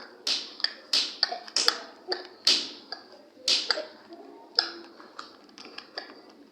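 Rubik's Cube layers being turned by hand: a run of sharp plastic clicks and clacks, irregularly spaced at about two to three a second.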